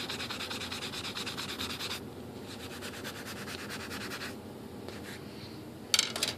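Sanding sponge rubbed in rapid back-and-forth strokes along a wing joiner rod, taking material down so the rod fits less tightly. The strokes go softer after about two seconds, and near the end come a couple of sharp clicks as a rod is laid on a metal table top.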